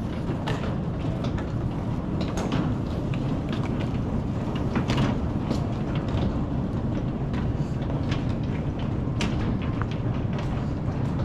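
Steady low mechanical rumble of airport ambience, with scattered light clicks and knocks throughout.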